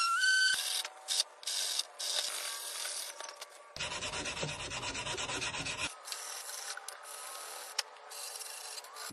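Sandpaper rubbed by hand over a wooden board in repeated strokes with short pauses between them. A random orbital sander's motor whine is heard briefly at the very start, stopping about half a second in.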